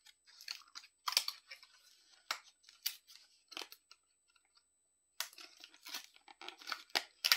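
Cosmetics packaging being handled and opened: scattered crinkles and sharp clicks, a short lull a little past halfway, then a busier run of crackling.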